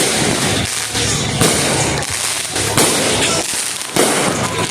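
Fireworks going off nearby: continuous crackling, with three sudden louder bursts about one and a half, three and four seconds in.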